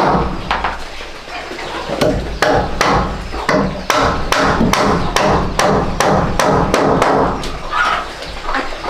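Hammer driving nails into a wooden door-frame post and trim: a steady run of sharp knocks, about three a second, that stops near the end.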